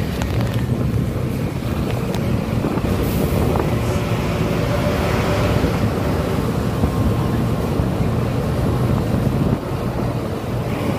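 Bus driving along at speed, heard from an open passenger window: a steady low engine hum under road and tyre noise, with wind buffeting the microphone.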